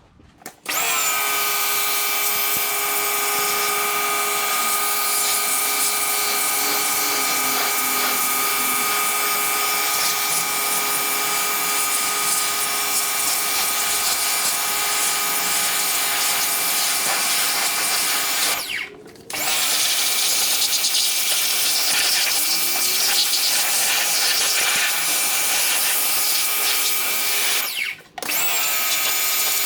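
Pressure washer spraying steadily, rinsing degreaser off an engine, with the machine's steady whine under the hiss of the spray. The spray stops briefly twice: about 19 seconds in, and again near the end.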